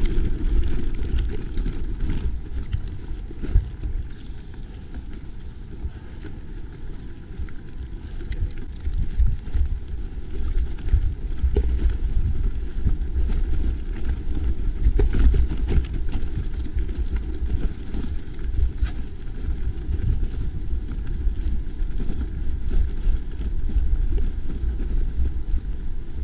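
Mountain bike ridden over a rough track: a steady low wind rumble on the microphone, with scattered knocks and rattles from the bike.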